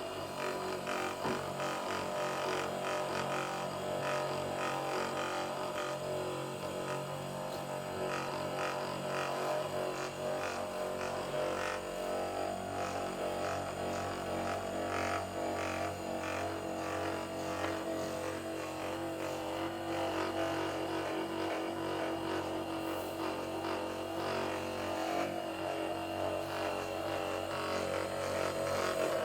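Handheld electric massager running with a steady buzzing drone as it works the muscles, with a fine, rapid pulsing.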